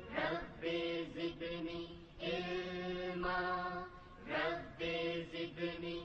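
Background vocal music: a chant-like sung melody with long held notes and short breaks between phrases.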